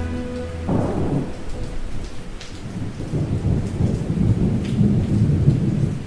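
Rain falling with low, rolling thunder rumbling unevenly. The last held notes of a soft melody stop under a second in.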